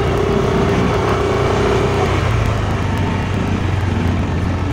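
Yamaha Aerox 155 scooter riding along: its single-cylinder engine runs at a steady pace under wind and road noise, with a steady higher hum that cuts out about two seconds in.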